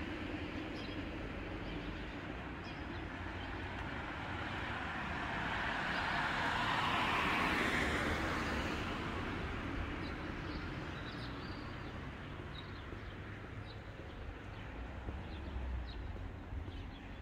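Outdoor traffic noise: a vehicle passes by, growing louder to a peak about seven or eight seconds in and then fading away. Faint short high chirps come in the second half.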